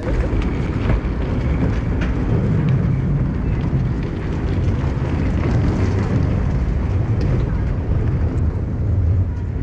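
Steady low rumble of the Catalina Flyer catamaran ferry's diesel engines idling at the dock.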